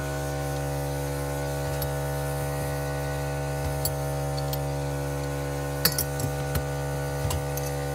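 A few light metal clinks and clicks of parts and tools being handled, loudest about six seconds in, over a steady background hum.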